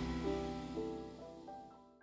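Background music with held instrumental notes, fading out steadily.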